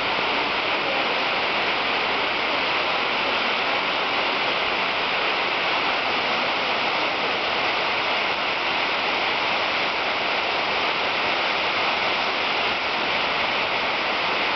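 Brekkefossen waterfall: a steady, unbroken rush of falling water.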